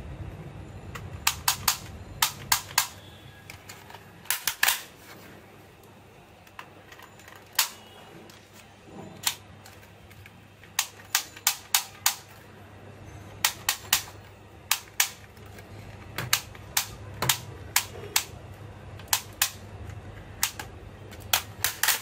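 Toy shotgun clicking as it is worked and fired: sharp clicks, mostly in quick clusters of two or three, repeated irregularly every second or two.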